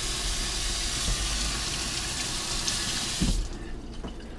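Kitchen faucet running into a stainless steel sink in a steady hiss. It is shut off about three seconds in, with a short knock just before it stops.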